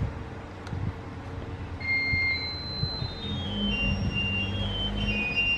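A simple melody of thin, high single tones stepping up and down in pitch, starting about two seconds in, over a low hum.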